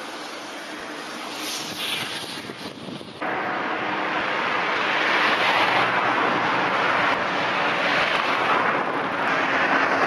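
Road traffic passing on a busy road, mixed with wind rushing over the microphone; the noise jumps abruptly louder about three seconds in and stays an even rush.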